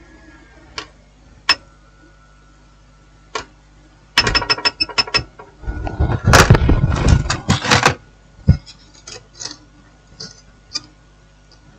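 Sharp clicks and clattering of small hand tools being handled on an electronics repair bench: a few single clicks, a quick run of rapid clicks about four seconds in, and a louder stretch of rattling clatter from about six to eight seconds, over a faint steady hum.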